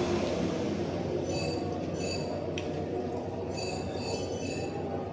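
Fork and spoon scraping and clinking against a ceramic noodle bowl as the noodles are stirred and lifted. There are two spells of short, high, ringing squeaks, about a second in and again near the end.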